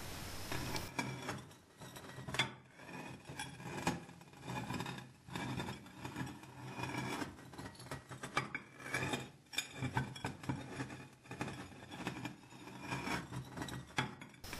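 Irregular clinks and scraping as a stone is rocked in a red bowl, tilting the bowl from side to side so that its rim rolls and grinds across sand.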